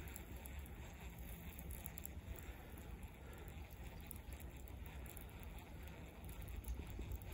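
Faint, unsteady low rumble of wind buffeting the microphone.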